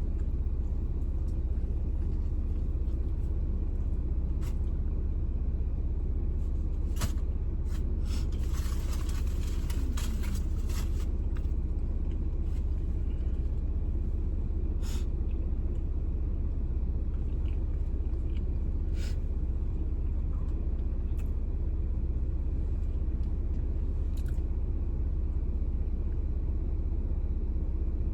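Steady low rumble of a car's cabin with the engine running. There are a few sharp clicks, and a short spell of rustling about eight to eleven seconds in.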